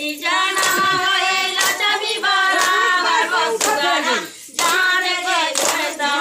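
A group of women singing a folk wedding song (suhag geet) together, with sharp hand claps about once a second keeping the beat. The singing breaks off briefly a little after four seconds in, then carries on.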